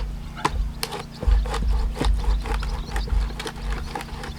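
Stringy larch round cracking and popping as its fibres give way around a lodged axe: a quick, irregular run of sharp cracks and clicks over dull low rumbles.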